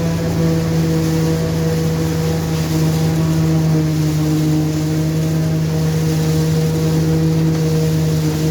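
Dania D5500 forage harvester and tractor running steadily while harvesting corn: a constant diesel engine drone with an even machinery hum that holds pitch throughout.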